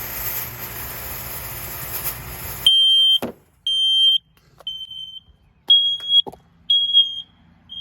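A steady rushing noise cuts off about three seconds in. Then a Kidde smoke alarm sounds high-pitched half-second beeps, about one a second, with a couple of short knocks among them.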